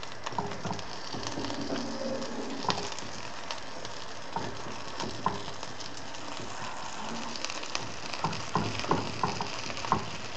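Fish cutlets sizzling in hot oil in a frying pan, with a metal fork scraping and knocking against the pan as they are turned. A few sharp knocks come close together near the end.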